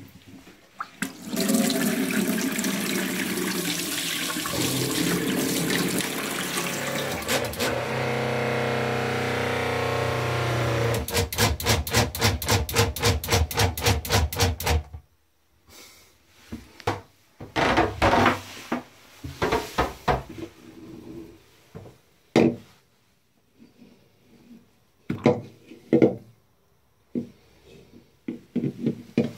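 Tap water running with a boat's electric freshwater pump running under it in a steady hum. The pump then pulses about three to four times a second and cuts out after about fifteen seconds. Scattered knocks and clatters follow as a shower head is handled in a basin.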